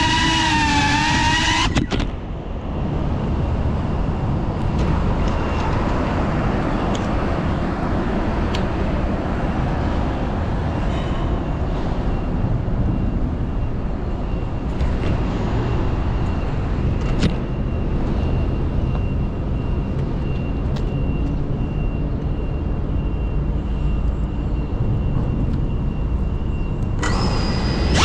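Steady road traffic noise from cars and scooters on the street under the overpass, picked up by the drone's GoPro microphone. A few sharp clicks and knocks come as the camera is handled. Background music plays briefly at the start and comes back just before the end.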